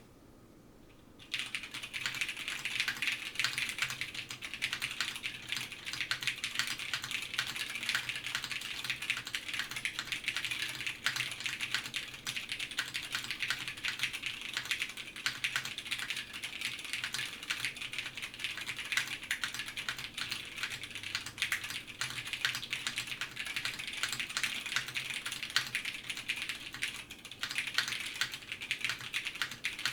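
Continuous fast typing on a custom mechanical keyboard with unlubed, stock-spring vintage Cherry MX Brown switches on an FR4 half plate, top-mounted, with GMK keycaps: a dense stream of clacky keystrokes, starting about a second in, with a brief pause near the end.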